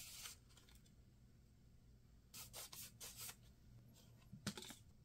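Faint rustling of paper cutouts being handled and rubbed together, in short bursts: once at the start, a few more a little past halfway, and once more near the end.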